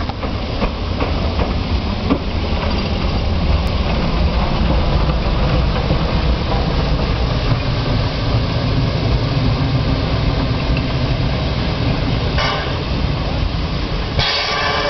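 Narrow-gauge steam tank locomotive moving slowly along the track, with a steady rumble from its exhaust and running gear. Near the end a brighter, higher sound comes in over it.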